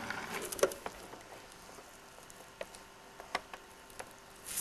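Faint scattered clicks and light handling noise over a low hiss.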